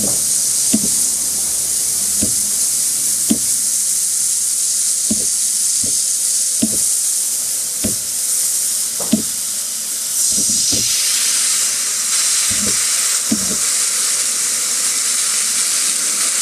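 Airbrush hissing steadily as compressed air at about 42 psi sprays paint for a fine line. The hiss grows louder and fuller about ten seconds in. Soft, irregular taps every second or two run under it.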